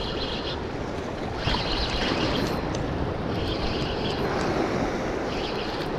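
A Daiwa spinning reel whirring in four short spurts as its handle is cranked to wind in line, over steady wind and surf noise.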